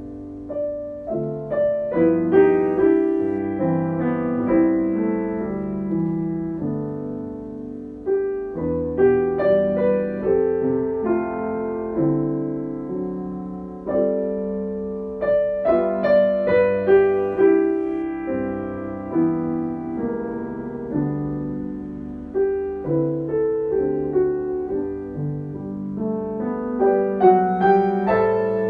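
Solo piano playing a slow, gentle piece in phrases of struck notes and chords.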